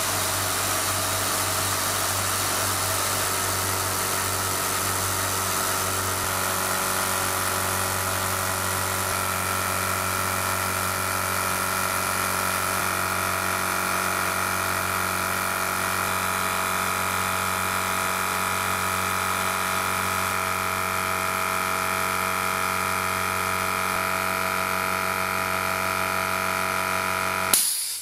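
Parkside PSKO 24 B2 oil-free 'silent' air compressor running steadily as it fills its 24-litre tank toward 8 bar; its tone shifts slightly about nine seconds in. Near the end there is a short loud burst and the running cuts off as the pressure switch stops the motor at full pressure.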